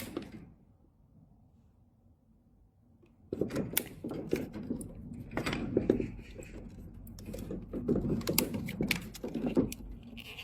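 Handling noise: quiet for about three seconds, then a busy run of sharp clicks, knocks and rustling until the end.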